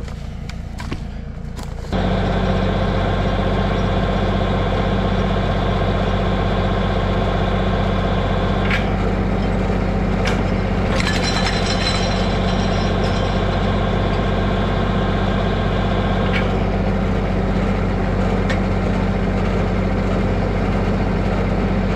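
LS compact tractor's diesel engine running steadily at working speed, driving a PTO-powered Fransgard logging winch that drags a buried log out of a brush pile. A few sharp cracks sound over it partway through.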